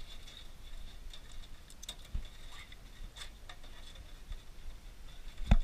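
Cooked blue swimmer crab being picked clean by hand in a stainless-steel sink with a little water: faint scattered clicks and light knocks of shell and fingers, with one sharper knock near the end.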